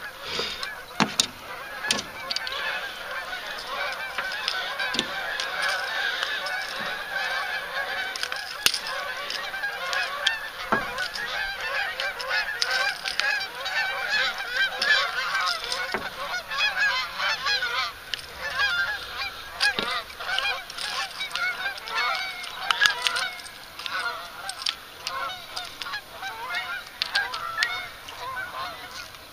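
A flock of birds calling continuously, many overlapping calls at once, with a few sharp knocks and clicks among them.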